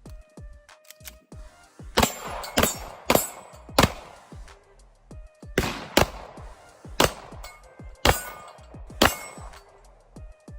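Springfield Prodigy 9mm pistol firing a string of single shots at an uneven pace, about eight in all, over background music.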